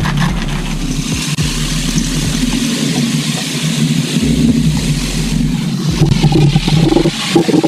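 Motorized garden sprayer running while its wand sprays the plants: a steady motor hum with a hiss of spray over it.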